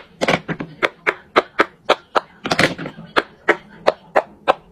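Silicone pop-it fidget toy bubbles pressed in fast succession: a rapid, uneven string of sharp pops, about four or five a second.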